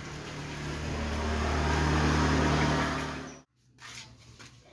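A motor vehicle's engine running and growing steadily louder, then cutting off abruptly about three and a half seconds in.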